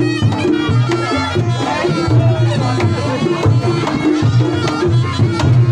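Live Reog Ponorogo gamelan music: kendang drums beat a steady driving rhythm under repeated pitched gong-chime strokes, with a reedy wavering melody from the slompret above.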